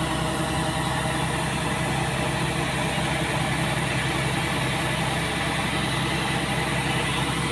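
Kubota DC-70 rice combine harvester's diesel engine running steadily while its unloading auger discharges threshed paddy rice. The grain pouring from the spout adds a steady hiss.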